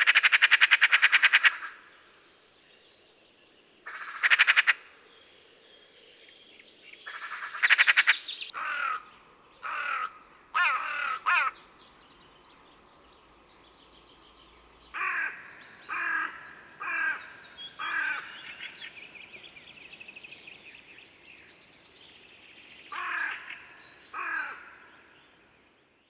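Eurasian magpie chattering: three long, harsh rattling calls in the first eight seconds, followed by a run of shorter harsh calls and two more near the end. A faint high twitter from a small bird can be heard between them.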